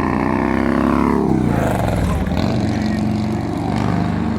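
A motor vehicle drives past close by, its engine note dropping in pitch as it goes by about a second in, followed by steady engine noise of traffic.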